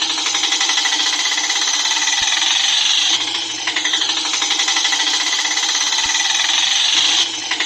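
Auto rickshaw engine sound, a fast steady rattle, with brief dips about three seconds in and near the end.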